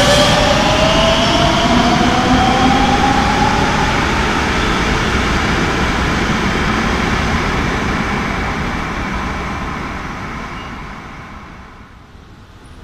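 Electric Madrid Metro Line 10 train pulling out of the station, its motor whine rising in pitch as it speeds up, then the running noise fading away into the tunnel.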